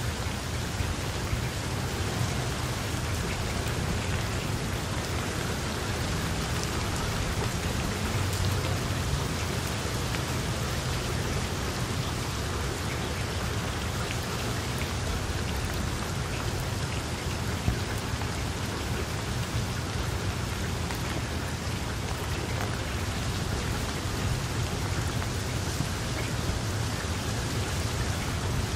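Steady rain falling on open water: a dense, even patter of drops, with a constant low rumble underneath.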